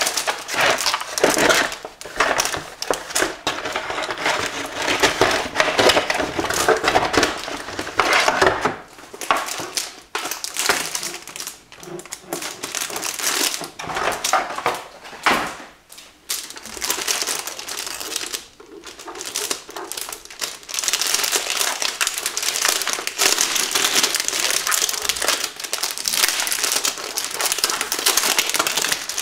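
Keyboard packaging crinkling and rustling under continuous handling, with a few short pauses, as a tightly packed keyboard is worked out of its box.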